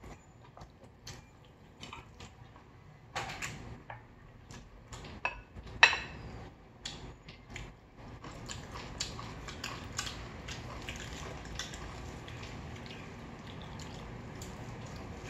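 Eating utensils clinking and scraping against bowls and plates, a run of short clicks with one sharper, ringing clink about six seconds in. From about eight seconds in, the small clicks and scrapes come closer together.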